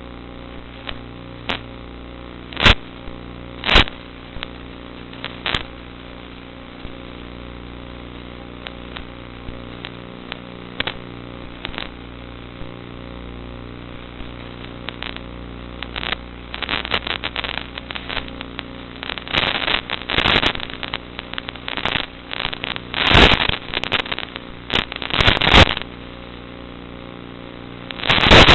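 Steady hum of a Zagi flying-wing model plane's motor picked up on board, broken by sharp crackles and pops: a few isolated ones at first, then dense clusters in the second half and a loud burst near the end.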